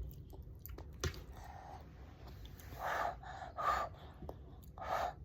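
A person huffing short breaths in and out through the mouth while eating hot food, several quick gasps from about three seconds in, with a single sharp click about a second in.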